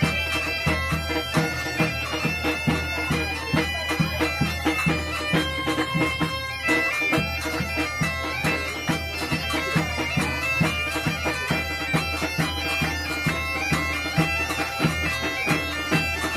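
Background music: a steady low drone under a held, wind-instrument-like melody, with a regular beat.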